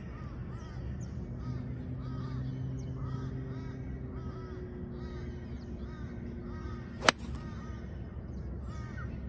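A 6-iron strikes a golf ball once about seven seconds in, a single sharp crack that is the loudest sound. Birds call over and over, with a steady low engine hum underneath.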